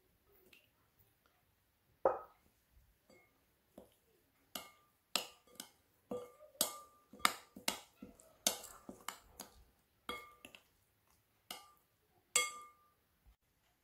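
A metal spoon and small steel bowls clinking against a glass mixing bowl while spices and lemon juice are mixed into a marinade. The clinks are irregular and each rings briefly. They are sparse at first and come quick and close together in the middle.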